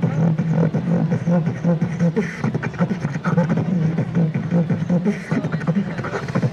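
A beatboxer performing into a handheld microphone: rapid mouth-drum beats over a held low hum.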